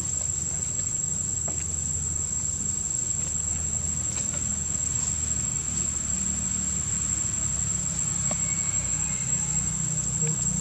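Steady high-pitched drone of insects such as cicadas or crickets, with a low rumble underneath and a few faint ticks.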